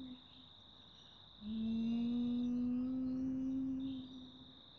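A woman humming a long 'mmm', the yummy sound, held from about a second and a half in until about four seconds in and rising slightly in pitch; an earlier hum trails off just at the start. Crickets chirp steadily throughout.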